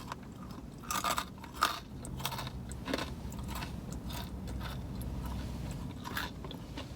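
Close-up chewing of boneless chicken wings: irregular wet, crunchy mouth clicks, a few each second at first, then sparser, over a low steady hum.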